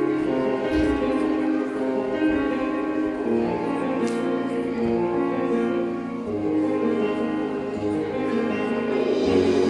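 Instrumental music with sustained, held chords that change every second or so.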